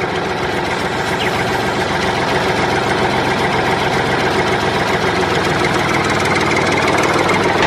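Diesel engine running steadily at idle with a fast, even beat, cutting off suddenly at the end.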